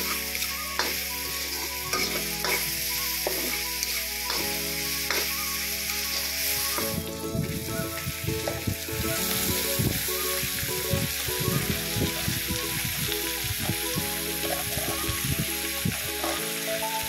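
Meat, onion and tomato sizzling in a wok while a spatula scrapes and stirs. About seven seconds in, sliced cabbage and carrots go in and the sizzle drops briefly, then a run of quick stirring and tossing strokes follows.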